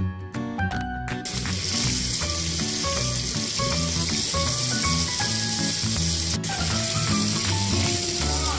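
Kitchen tap running, water splashing onto a potato and peelings in a sink as the potato is rinsed. It starts about a second in, over background music.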